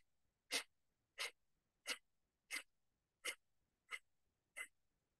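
Kapalbhati breathing: a woman's short, forceful exhalations through the nose, each pushed out by pulling the abdomen in, with passive inhalations between. The puffs are evenly paced, about three every two seconds, around eight in all.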